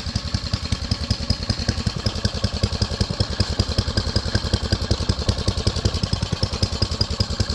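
Mini bike's single-cylinder Briggs & Stratton engine running steadily at a constant low speed, its firing pulses coming fast and even.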